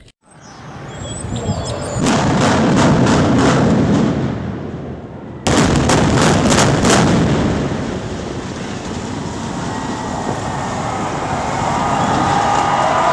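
Rapid series of sharp explosive charge detonations during the implosion of a 17-story reinforced concrete tower, followed by the long deep rumble of the structure collapsing. The burst of cracks comes twice, the second time starting abruptly about five and a half seconds in.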